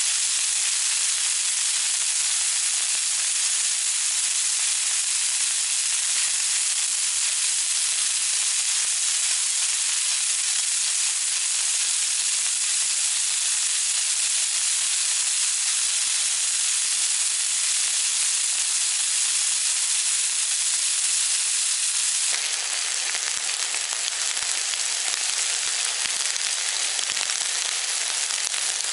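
Thick steaks sizzling in hot oil in a frying pan, a steady loud hiss. About 22 seconds in it changes to a slightly quieter, more crackly sizzle as the steaks cook in a bubbling sauce.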